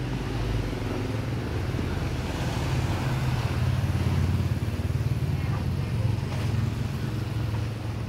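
A motor vehicle engine running close by on the street, a steady low hum that grows louder through the middle and eases off near the end.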